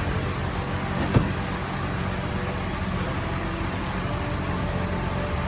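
Steady low mechanical hum, with a single short knock about a second in.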